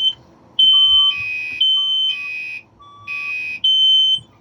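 Two fire alarms and a smoke detector sounding together, loud. A buzzy alarm horn and a high, shrill beep alternate in pulses of about half a second each, and a softer, lower beep joins three times in the first few seconds.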